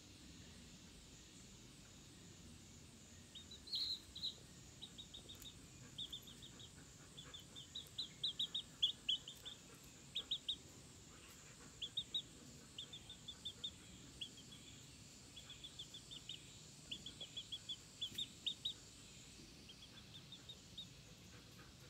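Young chicken peeping: short high chirps in quick runs of several at a time, starting a few seconds in and coming again and again until near the end.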